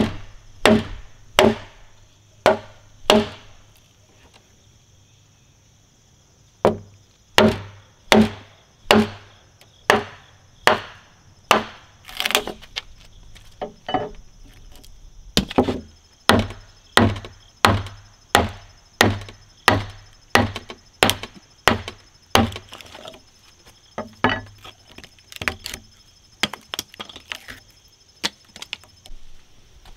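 Mallet blows on a wide framing chisel chopping the waste from a tenon on a softwood timber sill, sharp woody knocks about one every 0.7 s. The chopping stops for about three seconds near the start, and the last few seconds hold lighter, uneven taps.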